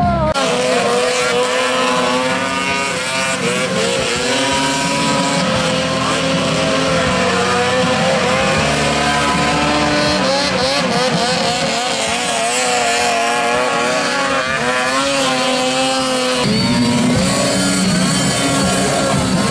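Off-road vehicle engines revving hard, their pitch rising and falling again and again.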